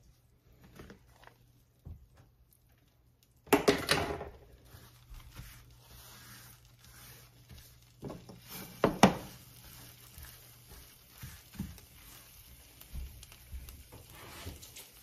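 Kitchen clean-up handling noise: a loud burst of clatter and rustle about three and a half seconds in, then a couple of sharp knocks around nine seconds, with a cloth rubbing across a glass-top electric stove, over a faint steady low hum.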